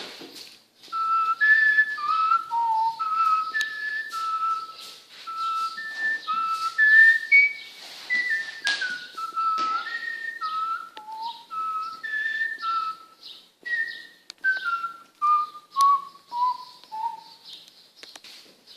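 A person whistling a tune of short held notes that steps down in pitch near the end, with scattered light knocks and clicks.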